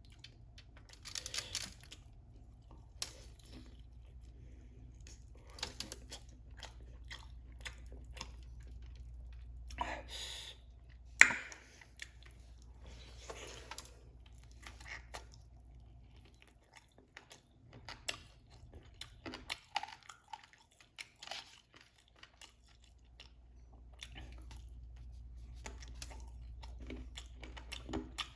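Close-miked chewing and crunching of crispy fried chicken wings and fries, with irregular crisp bites and mouth sounds. One sharp, loud crunch comes about eleven seconds in, over a low steady hum.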